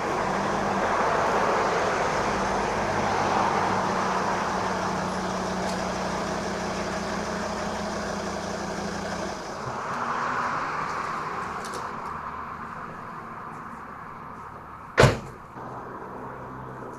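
A Volvo SUV driving up and coming to a stop, its engine and tyres a steady noise with a low hum that ends about nine and a half seconds in. About fifteen seconds in, one sharp car-door slam.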